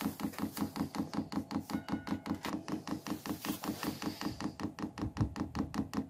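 Vevor diesel heater's fuel dosing pump ticking rapidly and evenly, about six clicks a second, as it is run in priming mode to fill the fuel line with diesel.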